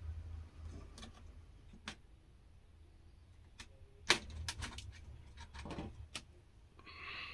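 Scattered small clicks and taps of plastic laptop casing and tools being handled while the laptop's upper panel is loosened, the sharpest click about four seconds in. A faint low hum runs underneath.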